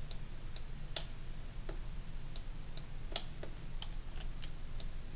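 Light, sharp clicks from a computer mouse and keyboard being worked, about two a second at uneven spacing, over a low steady hum.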